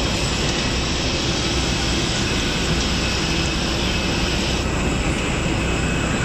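Steady roar of jet aircraft noise on an airport apron, with a faint high whine over it.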